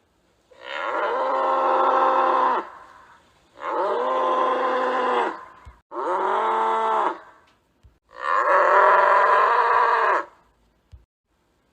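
A cow mooing four times, each moo a long drawn-out call that rises slightly and falls back in pitch.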